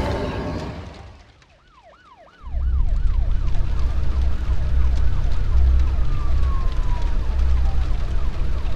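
A blast of flames dies away over the first two seconds. Then, over a steady low rumble, fire-engine sirens start: a quick rising-and-falling yelp, about three cycles a second, that fades, and near the end a long falling wail.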